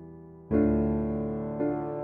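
Background music: slow piano chords, each struck and left to ring and fade, a new one about half a second in and another near the end.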